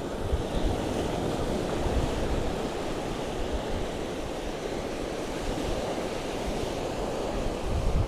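Sea waves washing on the shore, with wind buffeting the microphone in uneven gusts.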